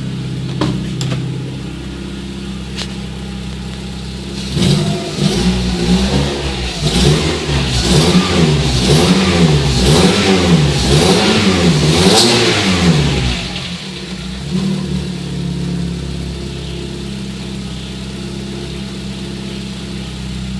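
Volkswagen Gol 1.0 8-valve four-cylinder engine, warmed up, idling, then revved in a row of about eight quick blips roughly once a second before settling back to idle. The owner says this engine makes an irregular loose-sounding clack at warm idle that a touch of throttle makes go away, and he suspects the piston pin or skirt.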